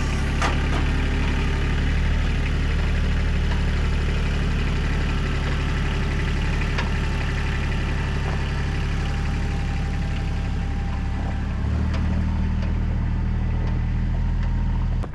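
Diesel engine idling steadily, its note stepping up slightly near the end before it stops abruptly.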